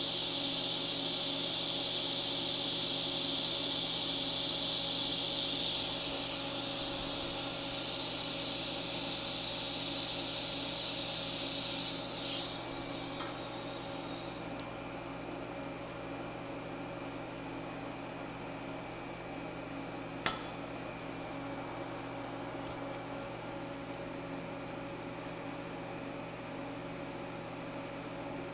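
TIG welding arc on stainless steel at about 50 amps: a steady high hiss over a low hum, which stops about twelve seconds in. After that only a quieter steady hum remains, with one sharp click about twenty seconds in.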